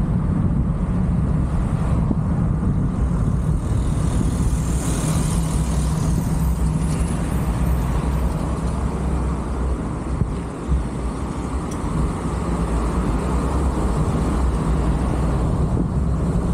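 Car driving along a street: a steady low rumble of engine and tyres on the road, with air rushing past.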